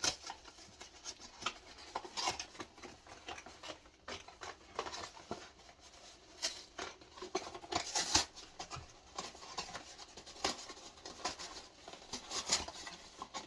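A cardboard shipping box being opened by hand: irregular scratching, rubbing and clicking as tape is cut and the flaps and packaging are pulled apart.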